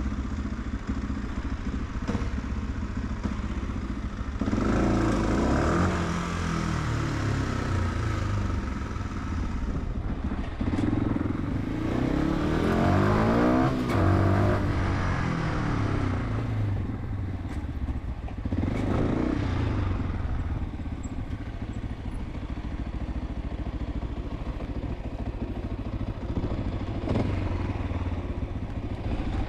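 Fantic 125 supermoto's single-cylinder engine on the move, revving up and easing off in several surges, then settling to a lower, steady run in the last third.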